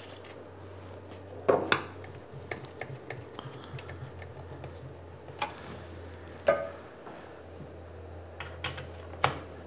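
Scattered light clicks and clinks of small metal parts, uneven and a second or so apart, as motor leads with crimped ring terminals are fastened back onto a variable-frequency drive's terminal block. A steady low hum runs underneath.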